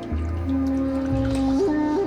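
Background music: slow, calm instrumental with a sustained melody line that steps up in pitch about one and a half seconds in, over a low bass note.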